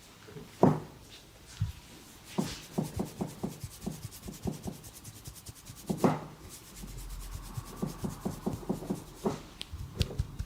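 Hands massaging skin: rubbing, with runs of quick rhythmic pats at about three to four a second and a few louder, sharper strikes.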